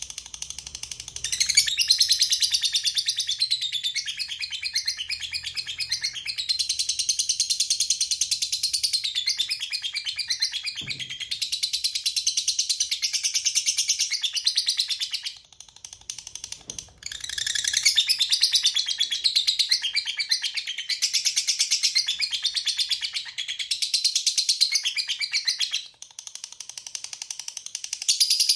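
Lovebird singing its long 'ngekek' song: rapid, high-pitched chattering trills in long unbroken runs, breaking off briefly about halfway through and again near the end.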